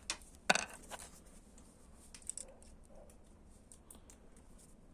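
Knipex bolt cutters shearing through a wood screw: one sharp snap about half a second in, followed by a few faint clicks and light handling.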